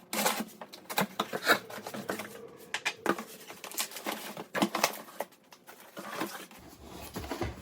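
Packaging and parts being handled while unboxing an espresso machine: a busy run of rustles, clicks and knocks, the sharpest about a second and a second and a half in.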